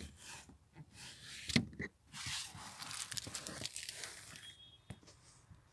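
Handling noise inside a pickup's rear cab: scattered clicks, a sharp one about a second and a half in, then a couple of seconds of rustling.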